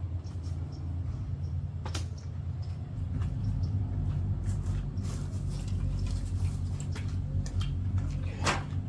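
Scattered clicks, knocks and rustling from handling the truck bed tent, over a steady low hum.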